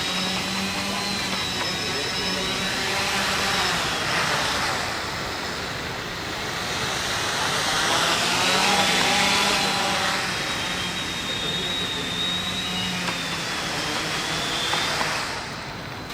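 Small drone motors spinning propellers with a steady whirring whine. The pitch and loudness swell up and down as the motor speed changes.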